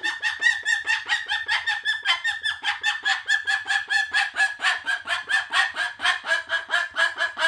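Cockatoo giving a rapid, even run of short clucking calls, about five a second, kept up without a break.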